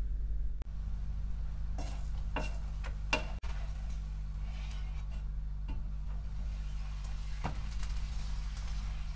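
A wooden spatula clicking and scraping against a non-stick frying pan as a crepe is loosened and turned, with a cluster of short taps about two to three seconds in and a couple more later. A steady low hum runs underneath.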